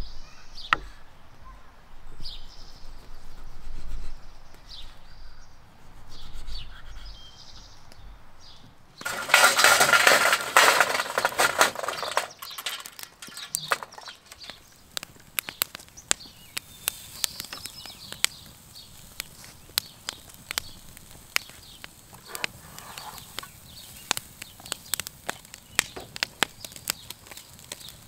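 Hot lump charcoal crackling and popping in a small stainless steel grill, a dense run of sharp snaps, after a loud rushing burst lasting about three seconds.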